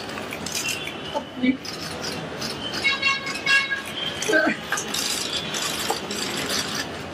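Murmur of a gathered crowd, with scattered indistinct voices and a few brief clicks.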